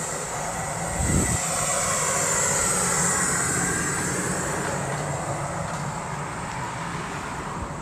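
An engine running steadily, a low hum under a hissing rush, with a single low thump about a second in.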